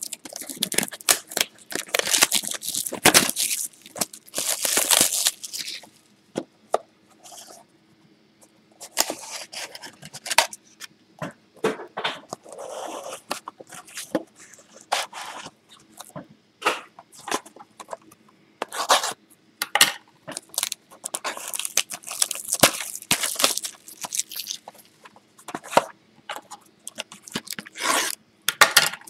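Plastic shrink wrap being torn off and crinkled, and cardboard card boxes being opened and handled. Irregular bursts of tearing and rustling with sharp clicks and short pauses, busiest in the first few seconds and again in the second half.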